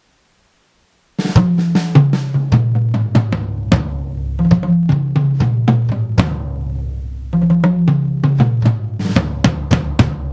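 Sampled Yamaha Absolute drum kit from BFD2 at default settings, with its raw, dry, unprocessed sound, played through a 2Box drum module. It comes in about a second in with a busy groove of bass drum and snare and rolls stepping down in pitch around the toms.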